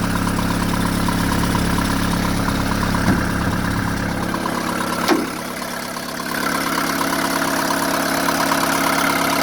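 Mercedes-Benz 190D four-cylinder diesel engine idling steadily shortly after a cold start. A light click comes about three seconds in and a sharper click a little past five seconds, after which the engine sounds less deep.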